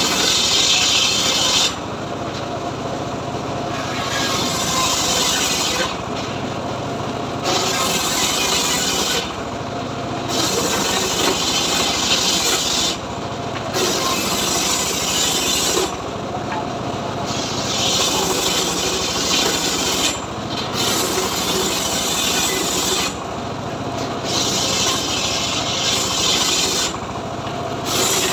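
Engine-driven homemade circular sawmill blade ripping lengthwise through a hardwood log. The cutting rasp comes in repeated spells of two to three seconds with short breaks between them, over the steady drone of the engine running the blade.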